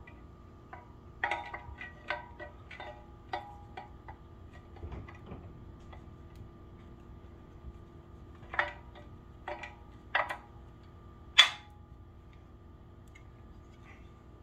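Metal climbing sticks clicking and clacking metal on metal as two stacked XOP Ultra Series fixed double-step sticks are worked loose and pulled apart. A quick run of small clicks comes about a second in, then a few single sharp clacks, the loudest about eleven seconds in and another right at the end.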